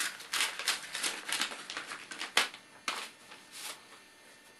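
Paper envelope being torn open and a letter pulled out and unfolded: a string of short, irregular tearing and rustling sounds, with one sharper rip about two and a half seconds in, fading out near the end.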